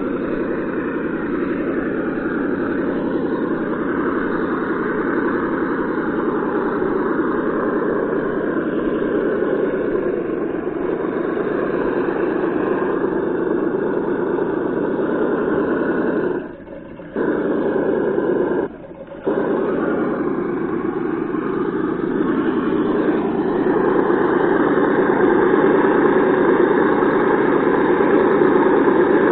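Simulated engine sound from an ESS T.T sound module on a Traxxas Summit RC monster truck, a steady motor-like drone played through its speaker while the truck drives. It cuts out briefly twice a little past halfway and grows slightly louder near the end.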